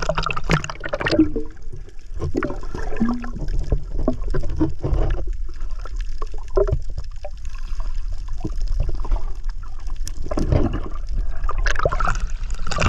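Seawater sloshing and gurgling around a microphone that dips under the surface and back out, in an uneven run of splashes over a low rumble.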